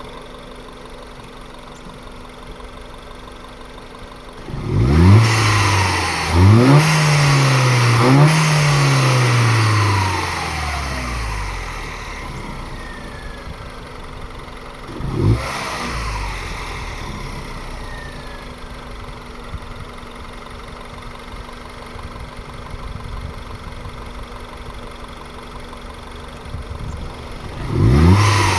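Mini Cooper S Clubman's turbocharged 1.6-litre N14 four-cylinder, fitted with an AEM performance intake, idling and then revved three times in quick succession about five seconds in, each rev falling back toward idle. A single short blip comes around fifteen seconds, then it idles again until the revs start to rise at the very end.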